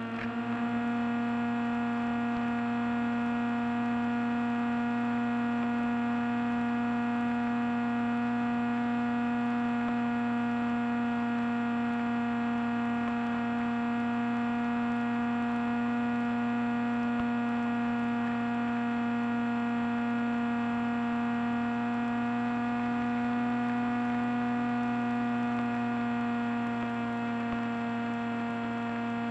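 Electric motor and propeller of a small FPV flying wing, heard from on board: a steady droning whine at cruise throttle, many-toned. The pitch drops a little right at the start as the throttle is eased back, then holds level.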